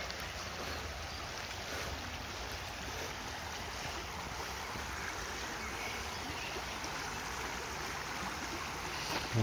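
Shallow river running over stones, a steady rush of flowing water.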